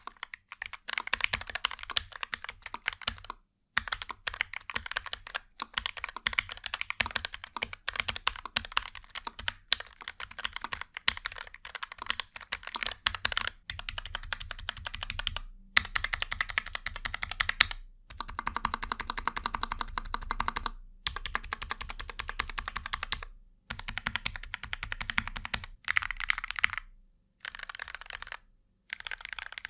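Continuous fast typing on the X-Plus VickyBoard, a plateless mechanical keyboard with Gateron G Pro 2.0 Yellow switches seated directly in an acrylic top case over a thin foam layer: a stiff clack of keystrokes in long runs with brief pauses. A low steady hum joins under the typing about halfway through.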